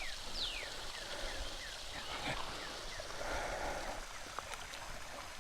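Quiet outdoor ambience with a bird singing a run of short, falling whistled notes in the first couple of seconds, followed by a soft hiss and a few faint clicks.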